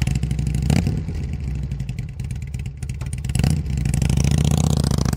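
Motorcycle engine running, blipped twice: about a second in and again about three and a half seconds in, staying louder after the second blip.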